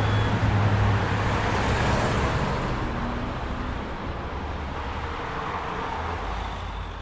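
Busy city traffic at a crossroads: cars and other vehicles running past, with a strong low engine rumble at the start that thins out. The whole traffic noise slowly grows quieter.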